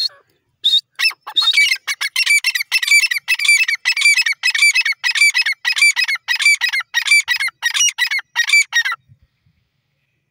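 Grey francolin (teetar) calling: a loud run of repeated, ringing notes, about three to four a second. The notes start scattered, build into a fast steady series, and stop abruptly about nine seconds in.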